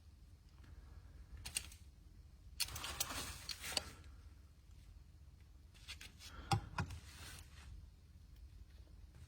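Close handling noises: a brief rustle, then about a second of denser rustling and scraping, and later a few sharp clicks and taps, as objects are handled on a surface.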